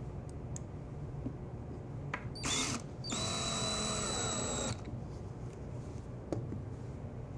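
DeWalt cordless drill/driver driving a wood screw into a drawer face: a short blip of the motor, then a steady run of about a second and a half, its whine sagging slightly in pitch as the screw bites. A few light clicks of handling come before and after.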